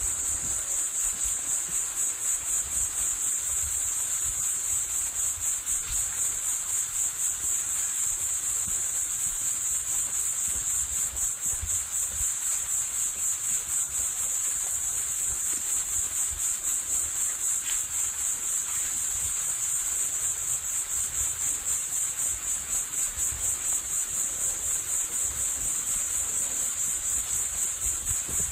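A steady, high-pitched, fast-pulsing chirr like crickets. Low thuds of footsteps on a dirt trail run underneath.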